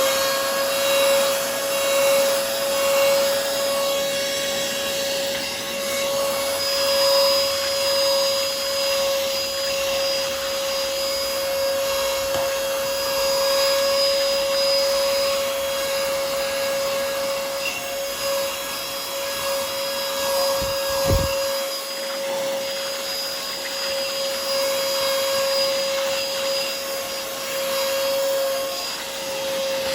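Yantu V01S cordless handheld car vacuum running on fabric, a steady motor whine over the rush of suction air. A brief knock sounds about two-thirds of the way through.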